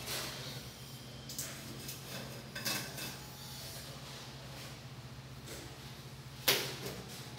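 Steel pointed trowel scraping and tapping against tile and mortar inside a shower niche, with a few sharp clinks, the loudest about six and a half seconds in.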